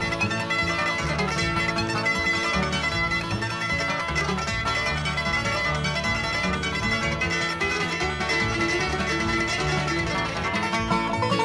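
Instrumental background music led by plucked string instruments, playing steadily throughout.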